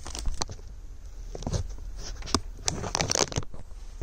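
A hand rummaging in a clear plastic bag of small metal sequins: crinkling plastic and rustling sequins in several irregular bursts, the longest near the end.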